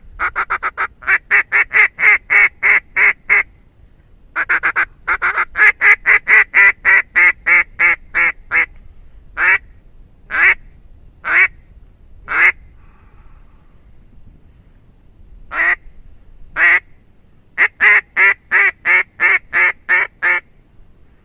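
Zink Calls Green Machine duck call blown in mallard-style quacks. It gives two long runs of quick quacks, about four a second, then slow single quacks about a second apart, and a final quick run near the end.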